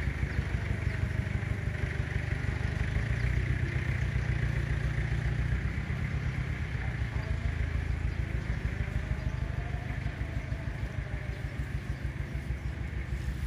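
A small engine running steadily at idle: an even low rumble with a rapid pulsing beat.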